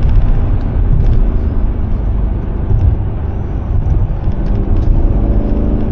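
Mercedes-AMG S63 engine and exhaust running while the car is driven, a deep continuous rumble mixed with road noise. The engine note comes through more clearly near the end.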